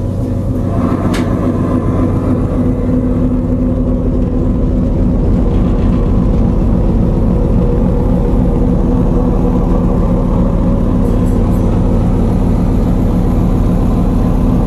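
Steady, loud drone of a submarine diesel engine room, the engine noise played back as a sound effect rather than a running engine. It builds slightly over the first few seconds, then holds steady.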